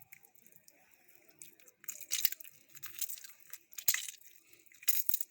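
A lemon squeezed by hand over marinating fish heads: wet crackling and squelching from the peel and squirting juice, in several short bursts from about two seconds in, with a sharp click near four seconds.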